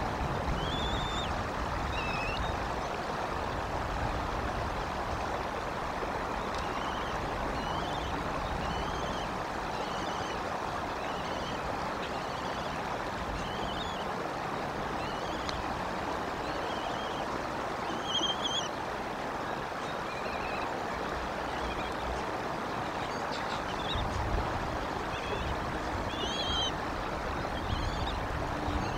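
Bald eaglet giving short high peeps every second or two as it is fed, over a steady rushing noise with low rumbling that comes and goes.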